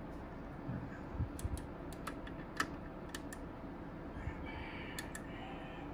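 About ten small, irregular clicks of fingers working the push-buttons and switches on the front panel of a Behringer Ultragraph Pro 6200HD graphic equalizer, over low room noise.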